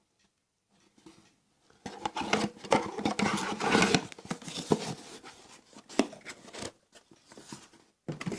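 Rustling and crinkling of packaging with small clicks and knocks as items are taken out of a phone's retail box, starting about two seconds in and loudest soon after.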